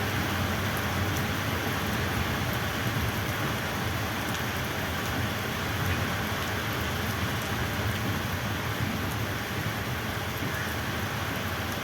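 Steady rolling rumble and rush of a long goods train's wheels on the track as the wagons pass, with no clear rhythm of wheel clicks.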